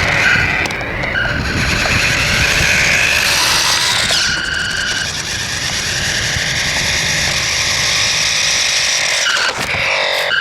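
RadioShack Sound Bat 2 sound-effects toy playing a loud electronic sound effect through its small speaker: a harsh, noisy roar with short high tones cutting in a few times.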